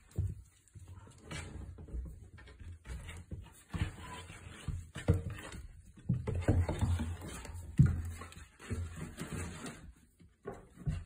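A litter of five-week-old goldendoodle puppies scuffling about on a blanket, with irregular rustling, bumps and a few sharp knocks, and an occasional faint puppy whimper.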